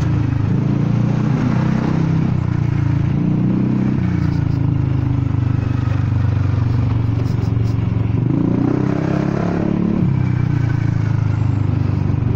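Honda Forza 300 scooter's single-cylinder engine running through its exhaust, with a deep, big note, as it rides through slow traffic. The throttle opens about eight seconds in, raising the pitch, then eases back.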